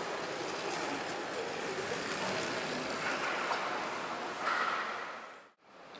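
Steady rushing noise of a bunch of track bikes riding round a wooden indoor velodrome, with a slightly louder patch about four and a half seconds in. The sound drops out briefly near the end.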